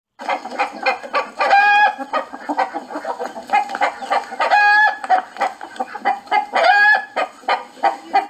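A chicken cackling: a rapid run of short clucks broken three times by a longer drawn-out call.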